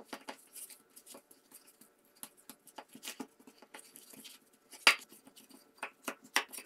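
Hands kneading soft curd-cheese dough in a stainless steel bowl: irregular squelches and small clicks, with sharper knocks of fingers against the metal bowl, the loudest about five seconds in and several more near the end.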